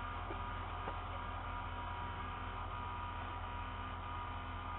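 A steady low electrical hum with light hiss and a faint steady tone above it, unchanging throughout.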